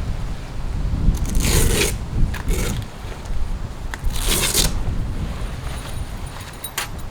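Wind buffeting the microphone in a low rumble, with three short zipping or scraping noises about one and a half, two and a half and four seconds in, and a click near the end.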